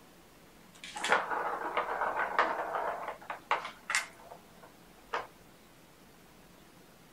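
Plastic balls rattling and rolling around a cat's ball-track toy as a kitten bats at them. A dense clatter lasts about two seconds, then a few separate clicks follow.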